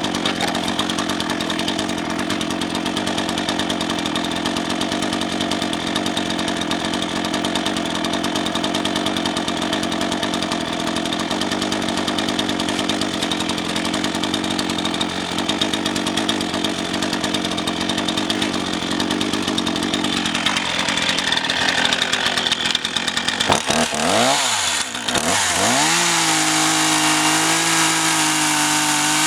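RedMax GZ400 two-stroke chainsaw cutting into a firewood log, the engine running steadily under load for about twenty seconds. A few seconds before the end the revs dip and swing up and down several times, then hold high and steady, dropping again at the very end.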